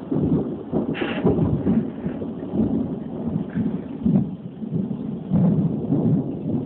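Thunder rumbling on without a break, swelling and fading in waves during a thunderstorm.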